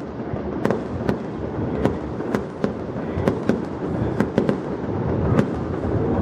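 Aerial fireworks bursting: a quick, uneven string of sharp bangs and crackles over a continuous low rumble.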